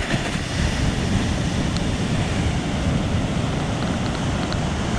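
Ocean surf washing steadily on the beach, with wind on the microphone adding a low rumble.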